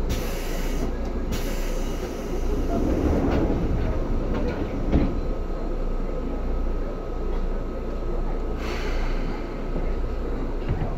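Seibu 2000 series electric train running, heard from inside the car: a steady rumble of wheels on rail, with a faint steady tone and a few short bursts of hiss. A single sharp knock comes about five seconds in.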